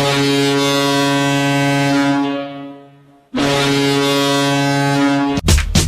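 Dundas Real McCoys' ice hockey goal horn blowing two long, steady blasts: the first fades away, the second is cut off near the end as the goal song starts.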